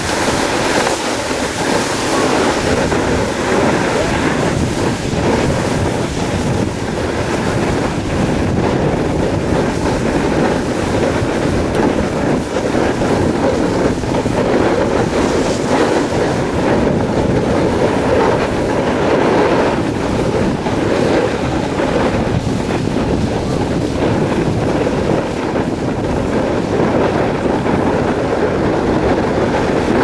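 Steady rushing noise of a snowboard sliding down a groomed run, its base and edges scraping over packed snow, mixed with wind buffeting the microphone.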